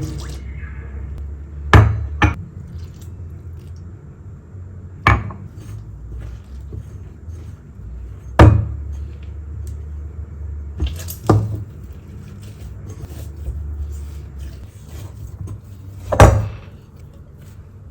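Kitchen cookware and utensils knocking now and then, about seven sharp separate knocks at irregular intervals, over a steady low hum.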